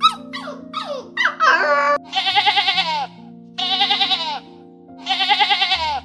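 A dog gives a quick run of short yelps that fall in pitch. From about two seconds in come three wavering bleats, each under a second long. Background music with held notes runs underneath.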